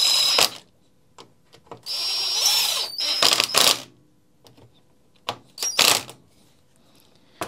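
A Makita cordless impact driver driving a screw into a metal trimmer guard bracket, in three bursts: briefly at the start, a longer run around the middle with a short break, and a short one near the end. Each burst has a high motor whine.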